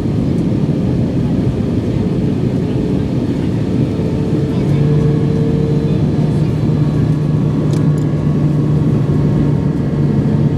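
Airbus A320 cabin noise in flight: a loud, steady rush of engine and airflow noise, with a steady low hum joining about halfway through.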